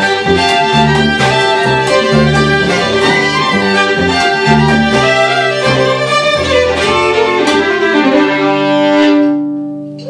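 Two fiddles and a plucked upright bass playing a folk tune together over a steady bass pulse, closing on a long held note near the end that fades away.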